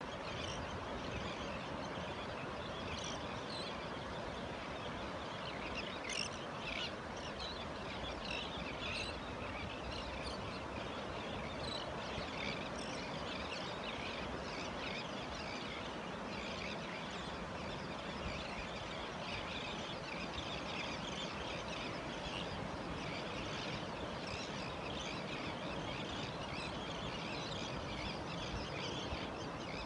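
A flock of terns giving many short, high calls over the steady rush of ocean surf.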